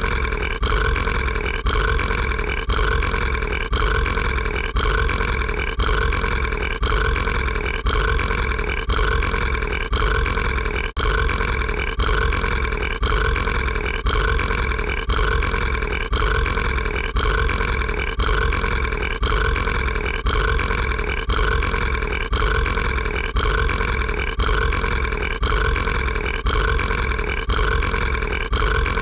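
An animated monster character's drawn-out burp, looped so that it repeats without end in short, even cycles of under a second. There is a brief break about 11 seconds in.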